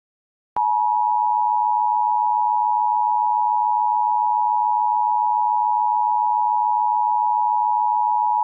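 Emergency Alert System attention signal: a steady two-tone alarm of 853 and 960 Hz, starting just under a second in and held unchanged for about eight seconds before cutting off. It is the tone that announces an emergency alert message, here a tornado warning.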